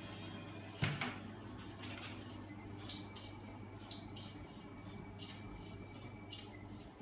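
Home-built magnet crankshaft machine running on small electric motors: a steady low hum with repeated light metallic clicks and rattles from the moving parts. One sharp knock about a second in.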